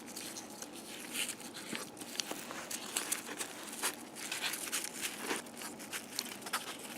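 Hands pressing a strip of sticky tack around a cardboard circle: faint, irregular rustling and crinkling with small taps and clicks.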